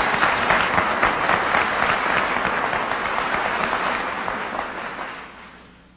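Audience applauding: a steady spread of many hands clapping, which fades away over the last second or so.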